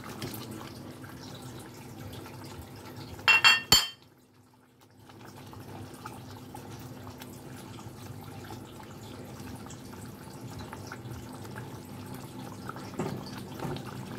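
Fish curry gravy simmering in a nonstick pan with a steady bubbling, as fried fish pieces are slid in and stirred with a spatula. A short cluster of sharp, ringing clinks of cookware comes about three seconds in.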